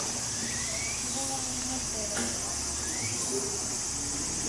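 Steady high-pitched chorus of insects, with a few short rising chirps and faint distant voices over it.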